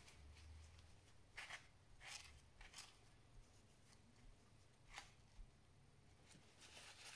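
Near silence, with about five faint short hissing strokes: dried thermal paste being cleaned off a laptop processor with window-cleaner spray and paper.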